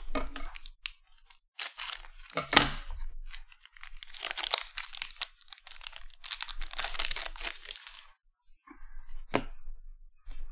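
A foil trading-card pack of Panini Select basketball cards being torn open, its wrapper crinkling in several rustling bursts, then a single sharp tap near the end.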